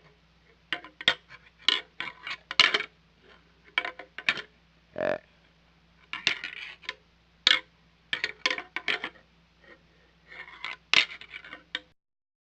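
Whitetail deer antlers clacking and rattling together as bucks spar: irregular clusters of sharp clicks with short pauses between. One short pitched call comes about five seconds in.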